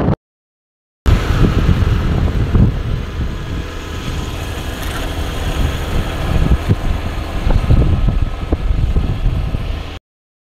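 Wind buffeting a phone microphone over the rumble of a moving vehicle, with irregular low thumps. It starts about a second in after a short silence and cuts off suddenly near the end.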